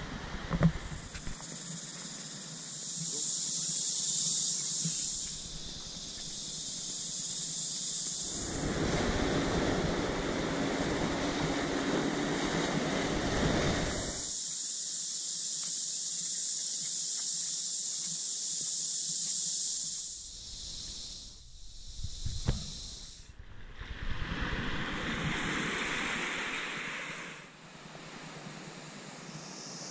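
Seaside ambience: a steady hiss of surf and wind, shifting abruptly in pitch and loudness several times.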